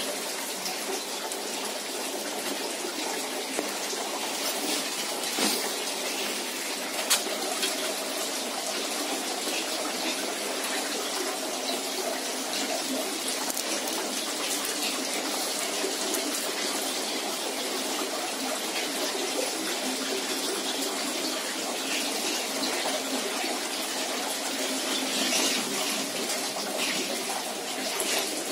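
Steady running water, a constant even rush, with a couple of small clicks about five and seven seconds in.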